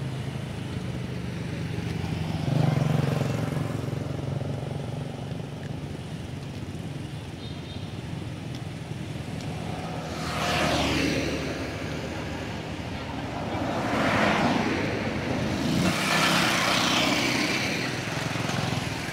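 Road traffic: motor vehicles passing one after another, each swelling and fading, about four times, over a steady low engine hum.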